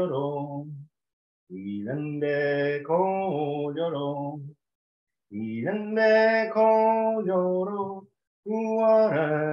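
A man singing unaccompanied, a song in Gaelic, in slow phrases of long held notes. Heard over a video call, the sound cuts to dead silence in the short breaths between phrases.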